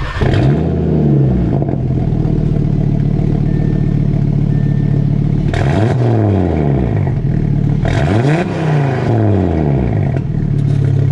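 Audi 2.5 TFSI turbocharged inline five-cylinder (DAZA) starting up, first start on new Unitronic port injectors and injector tune: it flares up in revs after catching, then settles to a steady idle. Two short throttle blips follow, about six and eight and a half seconds in, the revs rising and falling back each time.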